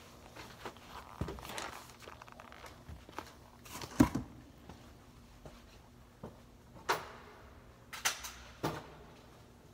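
Adidas Gazelle indoor soccer shoes with socks pulled over them, scuffing and knocking on a hard floor: a sharp knock about four seconds in, then a few more thuds and scuffs in the last few seconds.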